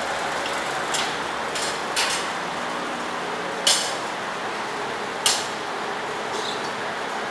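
Steady machinery noise in an induction-heating forge shop, with a few sharp metal clanks, the loudest about three and a half seconds in.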